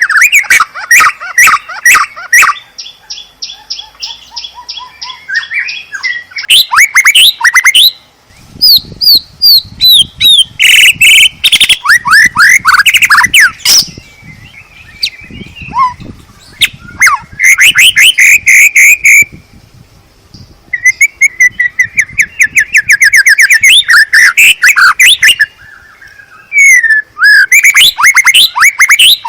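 White-rumped shama singing loudly in long, varied phrases: rapid trills of repeated notes, rising and falling whistles and sharp chirps, broken by short pauses.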